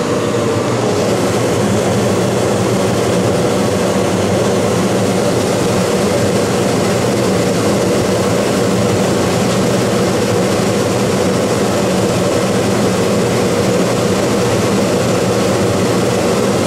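Dometic Brisk Air II 15,000 BTU rooftop air conditioner running, a steady hum with an even rush of blown air.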